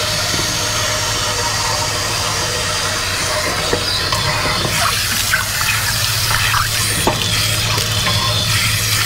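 Water from a pressurised hose spraying through a tank-rinsing wand inside a 10-gallon RV water heater tank, splashing and pouring out of the open anode-rod port as sediment is flushed out. A steady rush of water with a few small knocks.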